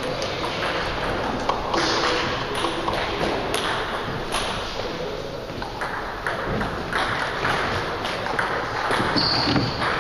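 Table tennis balls clicking and pinging on tables and bats at irregular intervals, with a short high squeak near the end.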